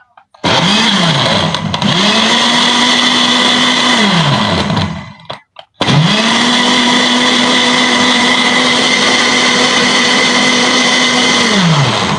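Electric blender blending soup in three runs: a short pulse, then about three seconds, then about six seconds, the motor spinning up to a steady whine and winding down each time.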